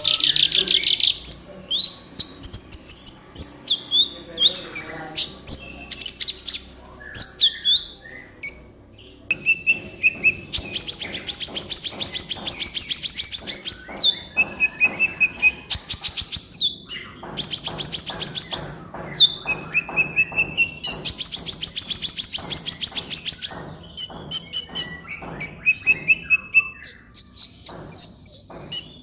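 A kolibri ninja sunbird singing energetically: sharp high chirps and short whistles, broken by two long, very fast trilling runs of rapid high notes, one about ten seconds in and another near two-thirds of the way through.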